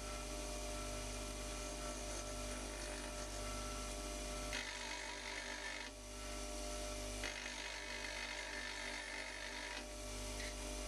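Off-hand bench grinder running with a steady motor hum. Twice, at about four and a half and about seven seconds in, a longer stretch of grinding hiss sounds as the end cutting edge of a two-flute slot drill is ground on the wheel's side in a sharpening fixture.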